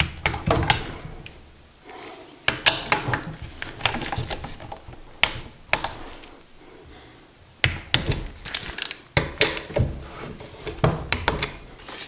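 Hand ratchet wrench clicking as bolts on a small engine are run down, in three spells of quick clicks with short pauses between them, along with knocks of metal tools and parts.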